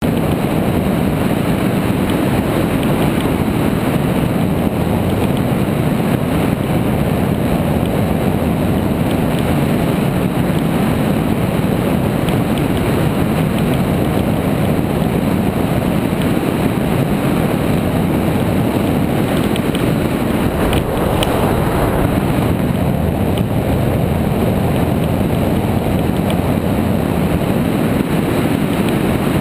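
Steady rush of wind over the microphone of a hang glider's wing-mounted camera in flight.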